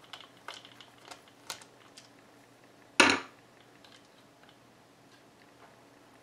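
Small clicks and taps of a screwdriver working at a screw inside a plastic earmuff earcup housing, with one louder sharp click about three seconds in.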